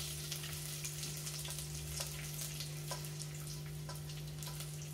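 A tempering of peanuts, mustard seeds, dried red chillies and curry leaves frying in ghee in a small steel pan: a steady sizzle with scattered small pops and crackles, over a steady low hum.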